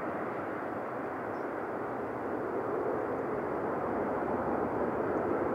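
Douglas DC-8's four CFM56 turbofan engines at climb power just after takeoff, a steady jet noise with no breaks, growing a little louder near the end.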